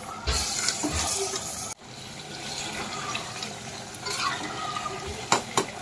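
Raw mutton pieces sizzling in hot oil and fried onions in a pressure cooker while a steel ladle stirs them. The sizzle is loudest in the first second and a half, drops off abruptly, then carries on steadily, with two sharp knocks of the ladle against the cooker near the end.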